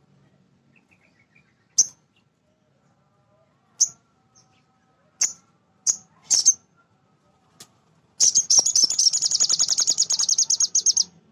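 Male sogon (little spiderhunter) singing: a handful of single sharp, high chirps a second or two apart, then a rapid, loud chattering trill of about three seconds near the end. This is the bird's full song, the kind played as a lure to set other sogons singing.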